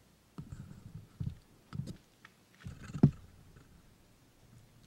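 Handling noise on a handheld camera: irregular low bumps and soft clicks, with a sharper knock about three seconds in and another at the very end.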